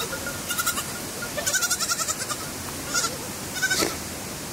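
Goats bleating, about four short, wavering calls spread through a few seconds.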